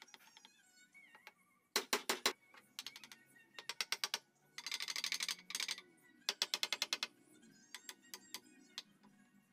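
Quick runs of light wooden knocks and rattles from a slatted meranti wood frame being tapped with a small hammer and worked by hand. The runs come in several short clusters, the densest about halfway through.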